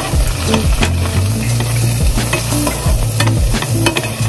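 Chopped vegetables sizzling as they fry in a hot non-stick pan, with a spoon stirring them and tapping and scraping the pan many times.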